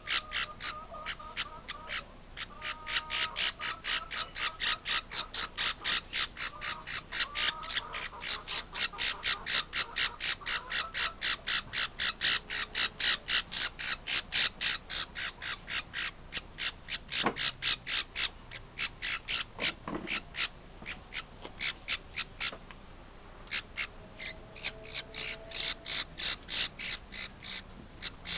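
Baby parrot chick calling over and over in short, even squawks, about three a second, with a brief pause about three-quarters of the way through.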